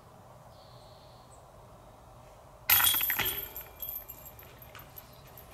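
A disc golf disc crashes into the chains of a basket about two and a half seconds in: a sudden metallic jangle of chains that rings and fades over about a second, with a lighter clink a second later.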